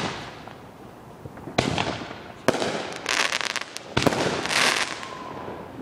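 Aerial fireworks going off: three sharp bangs, about one and a half, two and a half and four seconds in, with dense crackling of bursting stars after the second and third.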